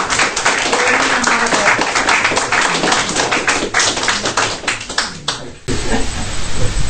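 Audience applauding in a small room, with a few voices mixed in. The clapping thins out and then cuts off abruptly about five and a half seconds in, leaving a steady hiss.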